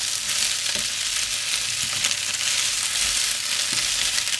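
Diced potatoes frying in hot olive oil in a non-stick pan, a steady sizzle, while they are stirred with silicone-tipped tongs that knock softly against the pan now and then.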